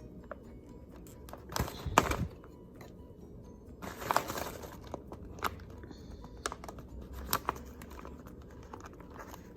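Glossy paper chip bag being handled and slid into a paper crimper: crinkling and rustling with scattered light clicks and taps, the loudest rustles about two seconds and four seconds in.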